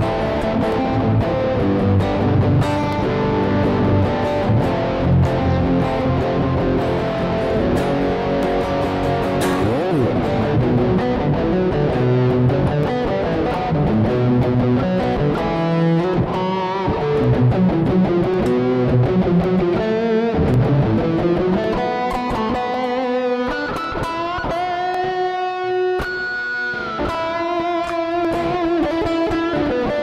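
Electric guitar played through a Harley Benton American TrueTone overdrive and amp-sim pedal, with mixer reverb. It starts with chords, and from about halfway it moves to single-note lead lines with sustained and bent notes.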